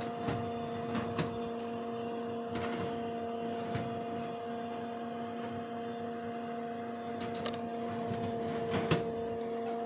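Steady electrical hum of a mains-powered appliance running, made of several level tones, with a few light clicks and rustles of handling.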